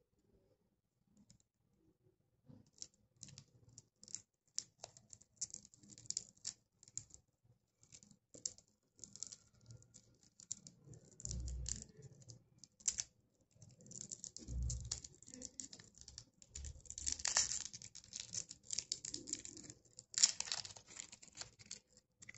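Thin plastic lollipop wrapper crinkling and crackling as fingers peel it off the candy ball, in irregular bursts that grow denser near the end. Twice, a dull thump from the hands handling it.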